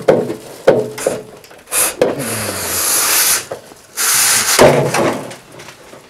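Wire chimney brush scrubbing inside a metal stovepipe, long rasping scrapes with sharp knocks of the brush and rod against the pipe, as it loosens creosote. The brush is drawn back out of the pipe near the end.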